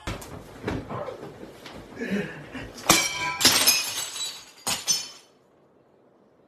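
A run of sharp crashes and clattering with some ringing, the loudest about three seconds in, dying out after about five seconds.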